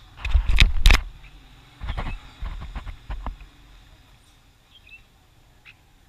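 A run of sharp knocks and scraping noises in the first half, then two short, faint chirps near the end from caged red-whiskered bulbuls.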